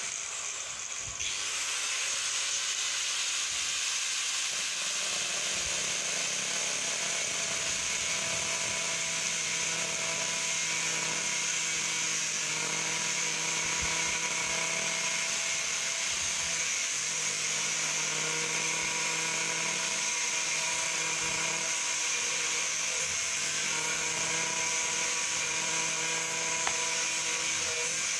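Electric angle grinder with a cutting disc running steadily at full speed, cutting through the plastic wall of a paint bucket. It comes up to full speed about a second in and keeps a steady high whine with a hissing cut.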